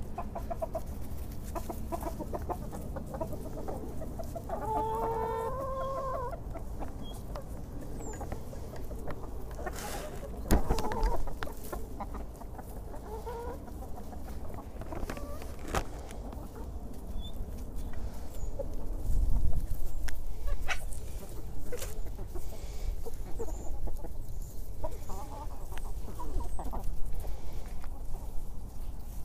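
Hens clucking close by as they peck in straw, with a longer rising call about five seconds in. Short pecking taps run throughout, with a couple of louder knocks as birds bump close to the lens.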